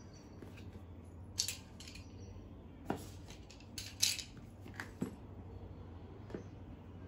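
A cardboard phone box and its packaging being handled and opened: scattered rustles and a few sharp clicks and taps over a low steady hum.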